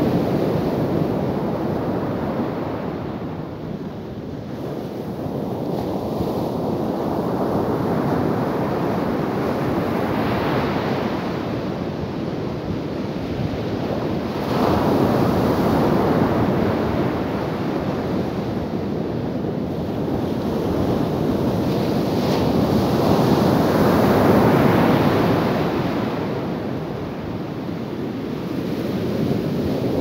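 Ocean surf breaking on a sandy beach: waves crash and wash up the shore in slow swells that rise and fall every several seconds, with a sudden louder surge about halfway through.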